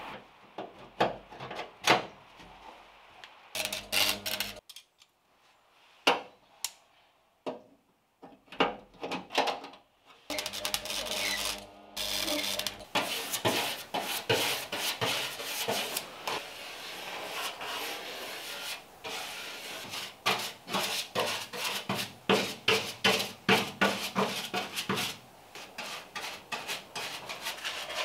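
A paintbrush scrubbing rust converter into the seams of a bare steel car floor pan: rapid, repeated rubbing strokes that take over a little under halfway through. Before that, a few scattered light clicks and taps from handling small metal seat brackets.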